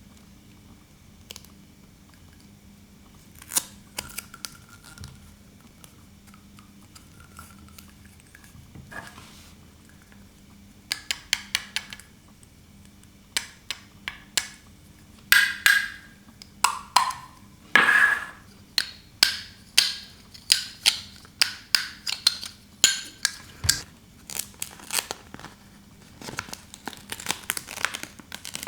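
Small plastic toy pieces clicking, tapping and clinking as they are handled. The sounds are sparse at first, then come quickly from about eleven seconds in, some with a short bright ring like tiny dishes.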